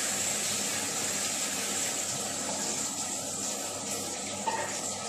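Okoy (shrimp and vegetable fritters) deep-frying in a pan of hot oil: a steady sizzling hiss.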